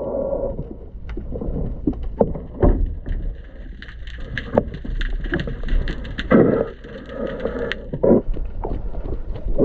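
Underwater recording of hands and a tool working on a boat propeller's hub to change its zinc anode: many sharp clicks and knocks of metal, with several muffled bubbly gurgles over a low underwater rumble.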